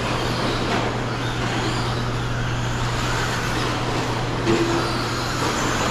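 Traxxas Slash electric RC short-course trucks racing on an indoor dirt track: a dense, steady noise of motors and tyres on dirt, over a constant low hum.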